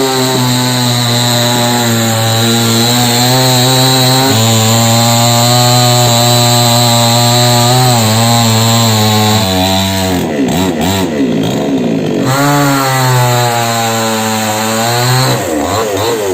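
Two-stroke chainsaw running at high revs, cutting into a coconut palm trunk. Its steady engine note drops and wavers about ten seconds in, then picks back up, and dips again near the end.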